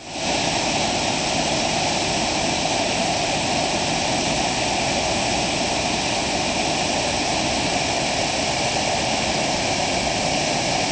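Steady rushing of a creek's water spilling over a small falls and running through the pool below.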